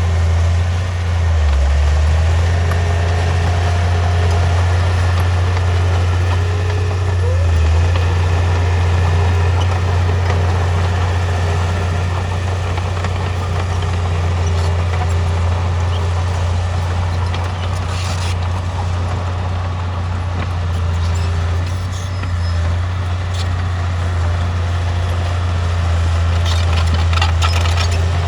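Heavy diesel earthmoving machine, a bulldozer or road roller, running steadily with a deep, continuous engine drone. A few light clanks come through about two-thirds of the way in and near the end.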